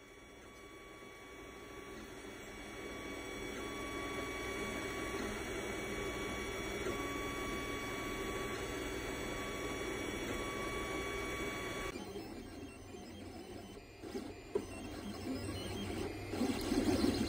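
LABISTS auto-leveling DIY-kit 3D printer printing the first layer of a model, its stepper motors whining in steady tones that shift in pitch as the print head moves. About twelve seconds in the sound changes, and a few sharp clicks follow near the end.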